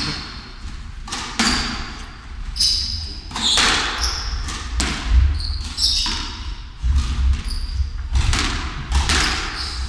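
A squash rally: the ball cracking off racquets and the walls about once a second, with sneakers squeaking on the wooden court floor between shots.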